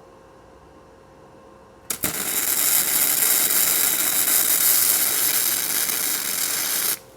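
Electric arc welding on steel tubing: a steady crackling hiss that starts sharply about two seconds in, holds for about five seconds and cuts off near the end.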